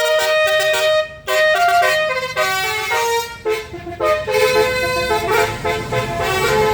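A tour bus's Basuri telolet horn playing a quick melody of stepped notes, with brief breaks between phrases. The bus engine runs beneath it and grows louder near the end.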